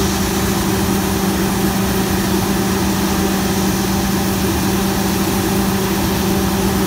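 Heavy diesel farm engine running at a steady speed: an even drone with a constant low hum tone.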